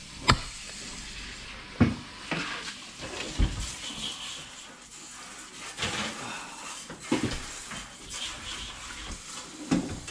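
A metal baking pan being handled and slid into an electric oven, with the oven door opened and shut: about half a dozen sharp clanks and knocks spread out, with a steady hiss between them.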